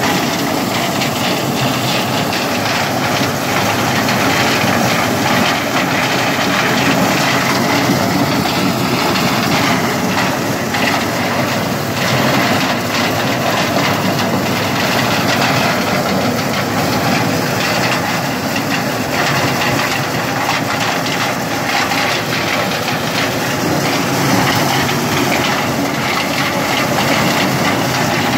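Engine-driven maize sheller running steadily while ears of corn are shelled, a continuous dense mechanical noise.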